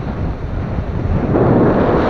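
Skis sliding and scraping over crunchy packed snow on a downhill run, with wind buffeting the microphone; the scraping gets louder about a second and a half in.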